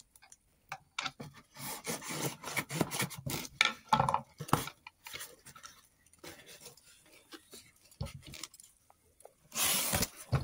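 Cardboard box being opened by hand: packing tape pulled and cardboard flaps rubbing and scraping, in a run of short irregular scratches, with a louder rasping burst near the end as the lid comes open.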